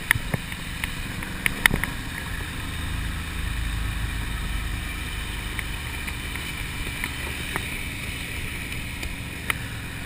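Ducati Monster motorcycle with its air-cooled L-twin running while riding, under a steady rumble of wind noise on the microphone. A few sharp clicks or knocks come in the first two seconds and once more near the end.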